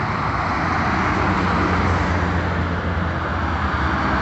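Highway traffic: heavy diesel vehicles, buses and a truck, passing close, a steady low engine drone under tyre and road noise.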